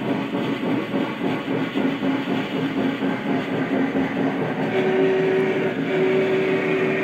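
Lionel Vision Line Union Pacific Challenger #3976 O-gauge model locomotive running on the layout: a steady rolling rumble of wheels on track with its electronic sound system, and a held tone that steps higher about five seconds in.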